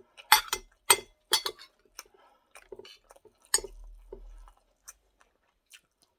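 Close-up eating sounds: chewing and mouth smacking, with a few sharp clicks, loudest in the first second and a half and once more about three and a half seconds in.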